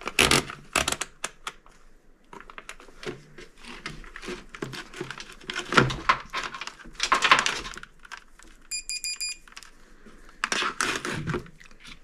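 Rustling and clicking as a multimeter and its test leads are handled among loose wiring harness and the leads are plugged in, with a quick run of about five short, high beeps from the meter's continuity buzzer just before 9 seconds in.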